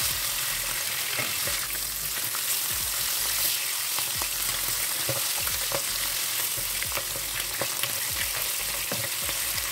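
Seasoned chicken wings sizzling steadily as they fry in hot oil in a nonstick wok, with scattered light knocks and scrapes of a spatula turning them.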